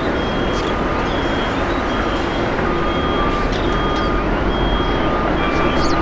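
Steady rumble and hiss of a taxiing Boeing 777-300ER's GE90 jet engines, with a reversing alarm beeping over it, a high beep and a lower beep alternating about once a second.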